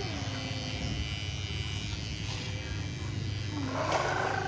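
A steady electric buzz throughout, with a voice gliding up and down at the start and again near the end, and a quick clatter of toy trucks being knocked together about four seconds in.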